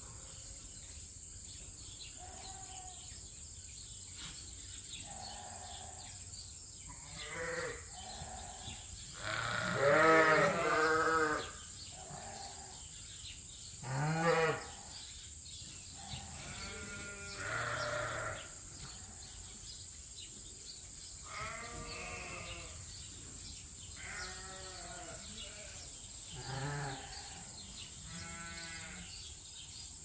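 Sheep bleating repeatedly: about ten wavering bleats from the flock, the loudest a long one about ten seconds in.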